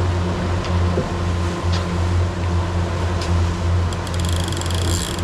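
Fishing boat's engine running with a steady low drone. Near the end a fast, high clicking starts: a reel's drag ratchet paying out line as a tuna takes the lure.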